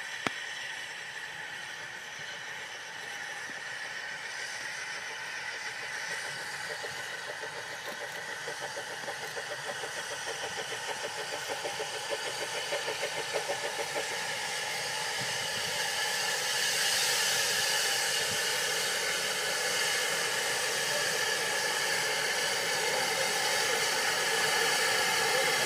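Narrow-gauge steam locomotive drawing nearer, its exhaust beats coming about two a second and growing louder, then a steady loud hiss of steam from about two-thirds of the way in as it comes up close.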